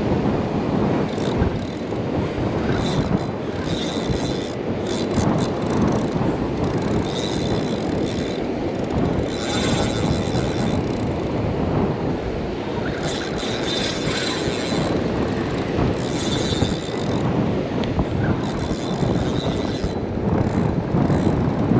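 Wind rumbling on the microphone over breaking surf. About eight times, a short high whirring from a Penn spinning reel, as the line works during the fight with a large fish.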